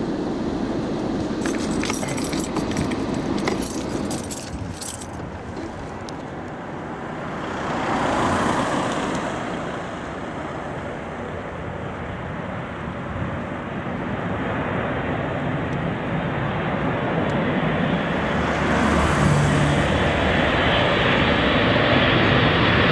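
Road traffic going by, with two vehicles passing as swells of noise. A steady roar grows louder toward the end.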